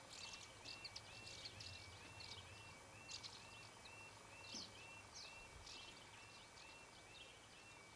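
Quiet outdoor sound of birds chirping, with a faint level crossing alarm stepping between two tones about twice a second.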